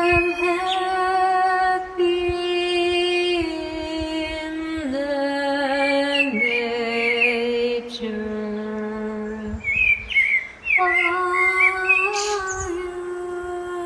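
Slow music of long held notes, with birds chirping over it.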